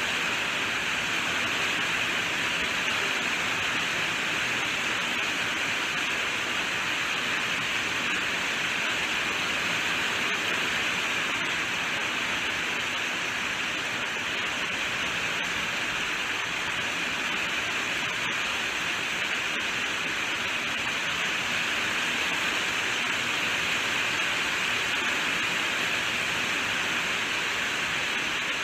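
Rain falling steadily: an even, unbroken hiss that stays the same throughout.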